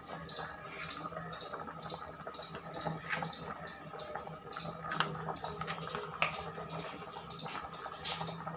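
A large pan of liquid boiling on a gas stove, bubbling with a few pops. A short high chirp repeats about twice a second throughout.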